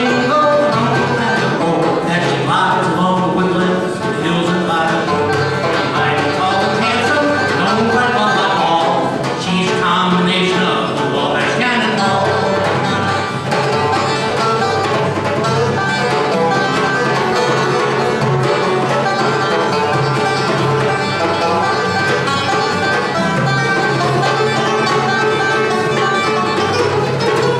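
A small acoustic band playing an upbeat bluegrass-style tune: a resonator banjo picking fast over a strummed acoustic guitar, with a hand drum keeping time.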